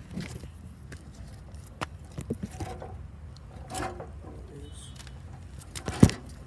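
Scattered clicks and knocks of lawnmower parts being handled, with one loud knock about six seconds in.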